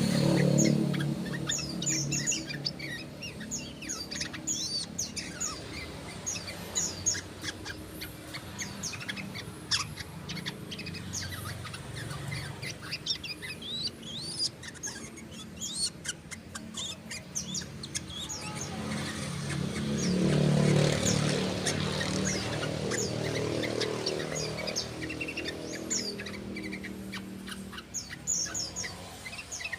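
Yellow-vented bulbul (trucukan) singing a string of short, quick chirping notes, a young bird still learning its rapid run of song. A low hum swells up about two-thirds of the way through and then fades.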